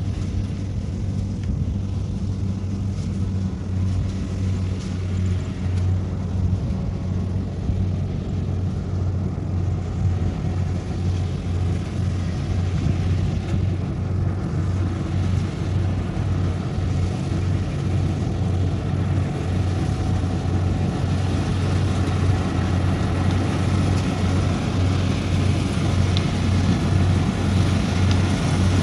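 Kubota combine harvester's diesel engine running steadily under load as it cuts rice, a low drone with the clatter of the machinery. It grows a little louder toward the end as the machine comes closer.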